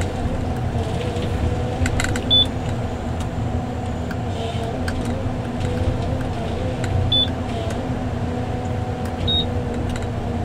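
A John Deere 1170G forestry harvester running steadily, heard from inside its cab as a constant diesel and hydraulic hum. Three short high beeps from the cab's control computer sound at intervals.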